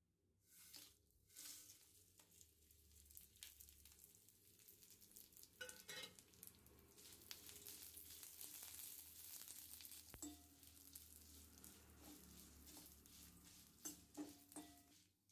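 Dried red chillies sizzling softly as they are tipped into a hot iron kadai and fried. A steel slotted spoon stirs them, scraping and clinking against the pan a few times, most near the middle and the end.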